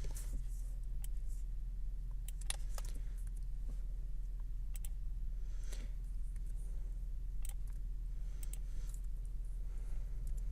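Scattered computer mouse clicks and keyboard key presses, a few in quick pairs, over a steady low hum.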